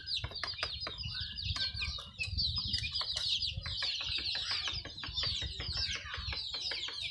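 Native chickens clucking and calling, many short high calls overlapping one another, with scattered clicks and a low rumble underneath.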